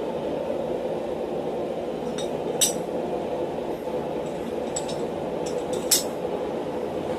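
Steel guillotine-tool parts and fuller dies clinking against each other and the steel block as they are set in place by hand: a handful of light metal clinks, the loudest about two and a half seconds in and near the end. Underneath is a steady rushing noise from the forge running.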